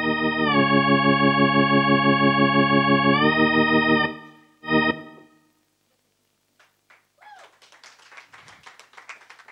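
Electronic stage keyboard playing a held organ-sound chord with a slow wobble. The whole chord slides down in pitch about half a second in and back up about three seconds in. It stops, one short chord follows, and then only faint audience noise remains.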